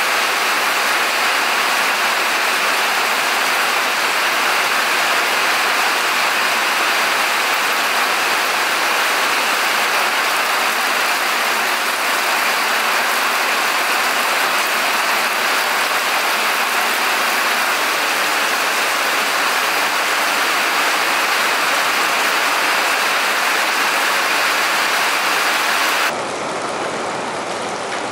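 Steady hiss of rain falling. It drops suddenly in level and brightness about two seconds before the end.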